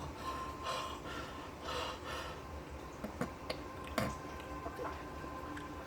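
A man sniffing and breathing in sharply through his nose, working up a sneeze that has not yet come, with a couple of soft clicks.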